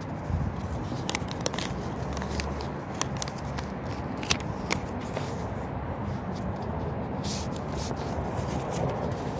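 A paper greeting-card envelope being opened and handled by hand, with scattered crackles and rustling of paper.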